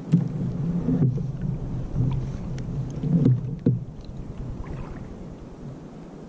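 Water slapping and sloshing against the plastic hull of a Hobie fishing kayak on a choppy sea, uneven and low, with a few sharp knocks.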